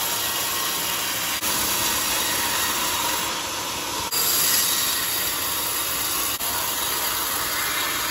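Sawmill band saw running and cutting through a teak log, a loud, steady hiss, with a few momentary dips.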